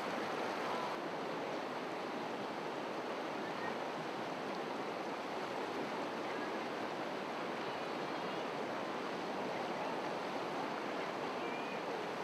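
River whitewater rapids rushing steadily: a continuous, even noise of churning water.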